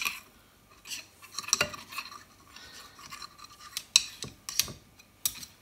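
A series of sharp metallic clinks, about half a dozen, with some light scraping, from steel lathe headstock parts (spindle, spacers and bearings) being handled and knocked together.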